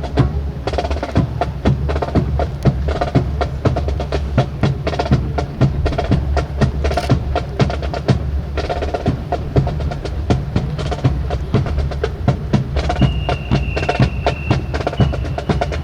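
Snare drum cadence for a rifle drill: a fast, dense run of sharp strikes and rolls. A high steady tone sounds for about a second and a half near the end.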